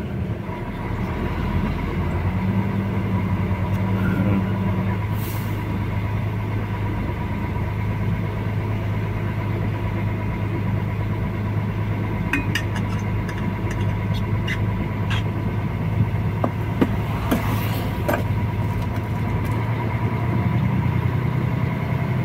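Truck engine running steadily, heard from inside the cab while driving over a potholed road. Loose clicks and knocks rattle through the cab in the second half, and there are two short hisses, about five seconds in and near the end.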